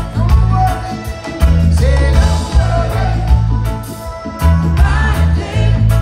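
Live reggae band heard from the audience: a heavy bass line and drums under electric guitar, with lead and backing vocals singing.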